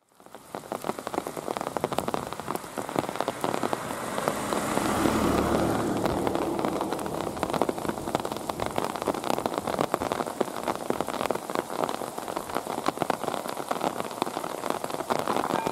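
Steady rain pattering, a dense spray of fine drop ticks, with a low rumble swelling and fading around five seconds in.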